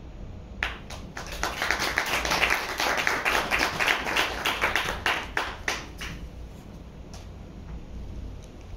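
A small audience clapping: a brief scatter of claps about half a second in, swelling into full applause, then thinning out to a few stray claps over the last few seconds.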